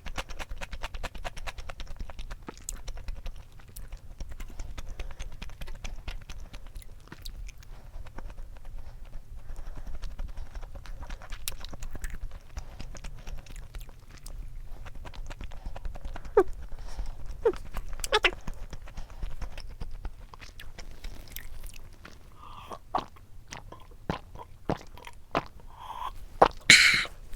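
Close-miked chewing and eating sounds, dense through the first half, then thinning out into scattered sharp clicks and a few short squeaky mouth sounds.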